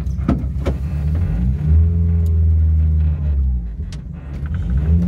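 Volkswagen Kombi van's engine running at low speed as the van is driven. The engine note rises about a second and a half in and holds for a couple of seconds. It then falls back and rises again near the end.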